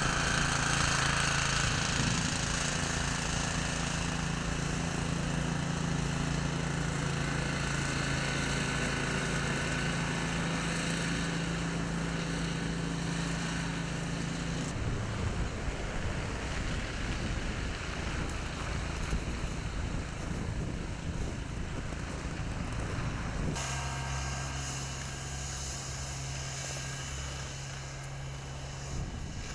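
A vehicle engine running steadily with a low hum, over a broad rushing noise of wind and snow. The sound changes abruptly twice, about halfway and again near the end.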